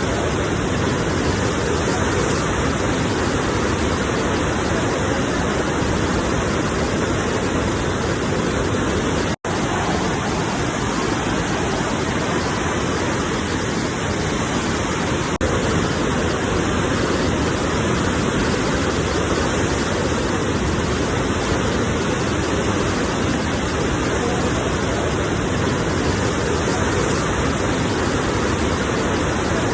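Sea surf as a steady, unbroken rushing of water with no distinct wave surges, cut by a brief dropout to silence about nine seconds in.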